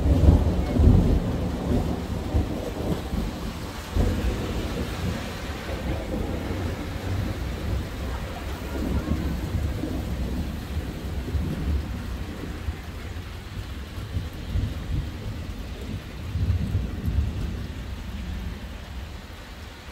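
Thunder rolling over steady rain. A loud low rumble at the start dies away slowly, a smaller rumble swells again near the end, and the hiss of rain runs underneath throughout.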